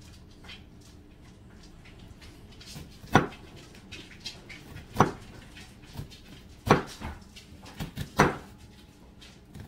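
Kitchen knife cutting through an onion and knocking down onto a plastic cutting board: a handful of sharp, irregularly spaced knocks, starting about three seconds in.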